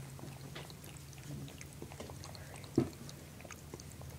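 A cat licking at a dry chrome drain stopper: faint, irregular little tongue clicks, with one sharper tap about three seconds in.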